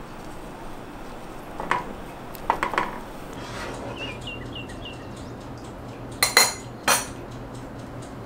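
Metal spoon clinking against a stainless steel pot while milk and ice cream are stirred: a few light clinks around two to three seconds in, then two louder clinks a little after six seconds.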